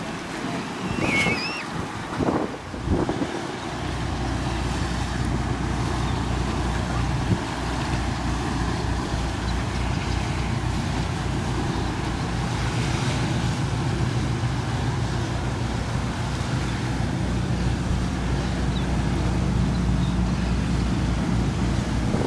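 A motorboat's engine running with a low, steady rumble that comes in about four seconds in, over surf and wind noise on the microphone.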